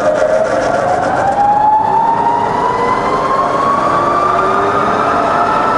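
Bridgeport Vari-Speed milling machine head running in low range with the spindle in reverse, its whine rising steadily in pitch as the speed is wound up from 60 RPM, then levelling off about four seconds in.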